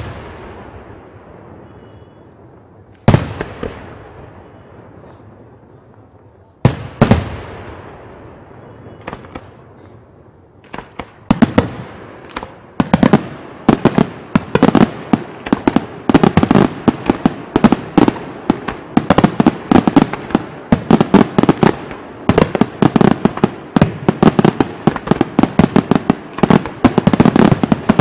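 Aerial fireworks: single loud shell bursts about three and seven seconds in, each fading away, then from about eleven seconds on a dense, rapid run of bangs and crackles from many shells going off together.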